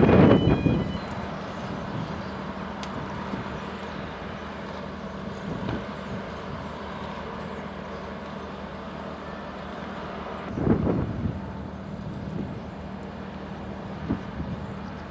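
Steady low engine hum, a ship's engine running across the harbour. A loud rush of noise fades away within the first second, and a shorter one comes about ten and a half seconds in.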